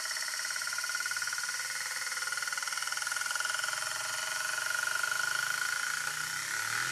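Euler's disk spinning and rolling on its mirrored base, a steady metallic ringing whir with a fast flutter from the rolling edge.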